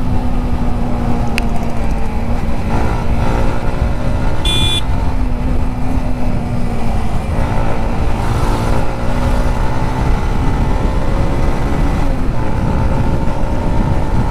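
Motorcycle riding on the road: heavy wind and road noise on the microphone over a steady engine note that rises as the bike accelerates about seven to nine seconds in. A brief high beep sounds about four and a half seconds in.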